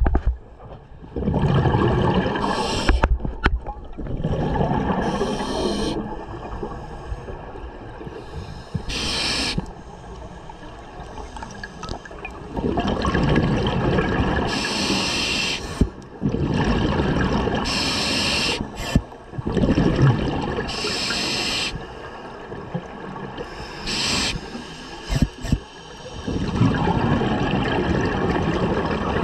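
Scuba diver breathing through a regulator underwater: short hissing inhalations alternate with longer bubbling exhalations, several breaths in a steady rhythm.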